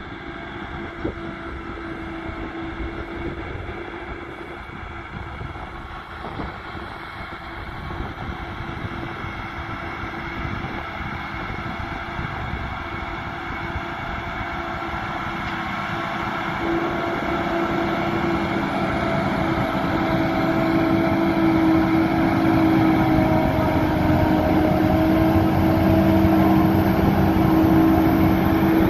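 Krone Big X 630 self-propelled forage harvester chopping grass, with a Fendt Vario tractor pulling a forage wagon alongside. The machines run with a steady, even hum that grows louder as they come closer.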